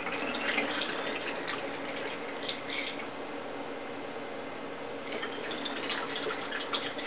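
Smoothie bottles being filled with water and handled: irregular scraping, clicking and splashing in two spells, over a steady low hum.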